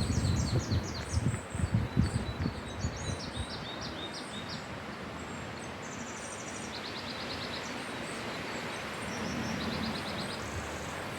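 Wind blowing through forest trees with a steady rushing, while small birds chirp and trill over it. Gusts buffet the microphone with a low rumble during the first few seconds.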